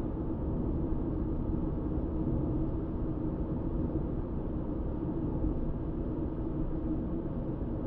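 Car cruising at steady road speed: even tyre and engine noise with a steady low hum, unchanging throughout.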